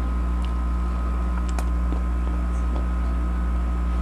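A steady low hum with fainter steady higher tones above it, and a few soft clicks from eating fruit at a plate.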